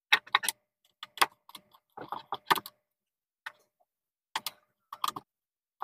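Irregular sharp clicks and light metallic taps from a screwdriver and stripped wire ends being worked into the screw terminals of switches on a switchboard panel.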